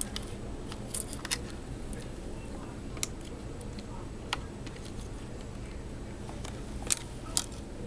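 Scattered light clicks and taps of plastic laptop parts and cables being handled and fitted into place, over a steady low hum.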